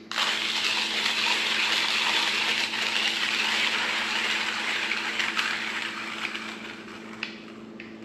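1ZPresso K-Plus hand coffee grinder being cranked, its burrs crunching coffee beans at a fine espresso setting: a steady gritty grinding that turns quieter after about six seconds.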